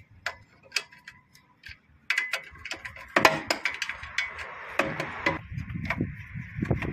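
Socket ratchet clicking as it works the top-mount nut of a front shock absorber loose: a few separate clicks at first, then from about two seconds in a faster, louder run of clicks.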